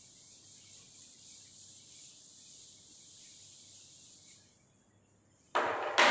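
Faint, steady scrubbing hiss of a duster wiping chalk off a chalkboard, which stops about four and a half seconds in. Near the end come two loud, sudden sounds about half a second apart.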